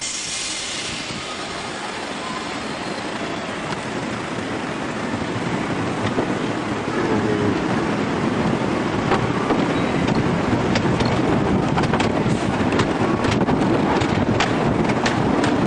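Wooden roller coaster train running on its track: a steady rumble and rush of air that grows louder about halfway through, with many sharp clacks in the second half.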